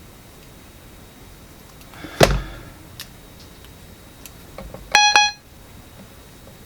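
A sharp knock about two seconds in, then about five seconds in a short, bright electronic note, about a third of a second long, from the Yamaha PortaSound PSS-30's built-in voice as a key is pressed.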